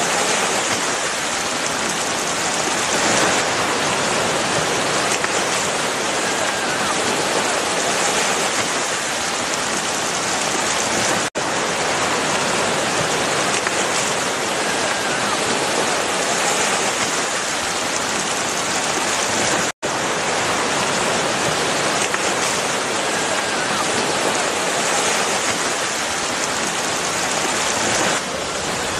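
Steady rain-like hiss of water splashing as a dense school of mullet runs through the shallows at the surface. It cuts out for an instant twice, about a third and two-thirds of the way through.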